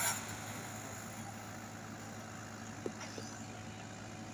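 Komatsu WB93R backhoe loader's diesel engine running steadily at low revs, a constant hum, with two faint clicks about three seconds in.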